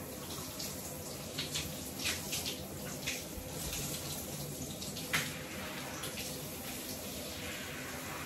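Water running from a handheld shower sprayer as a dog is rinsed in a bathtub, a steady hiss of flowing water with a few brief sharp sounds, the clearest about five seconds in.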